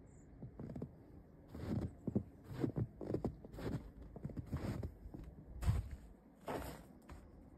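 Footsteps of fursuit feet paws treading through deep snow: a string of soft, irregular steps.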